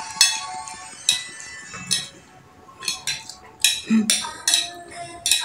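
Small metal spoons clinking and scraping against plates in quick, irregular strokes as two people eat fast, over background music.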